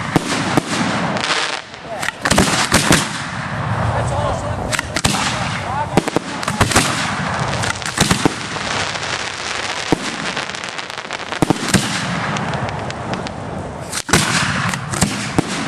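Fireworks going off in rapid succession: many sharp bangs over a continuous dense crackle of bursting shells.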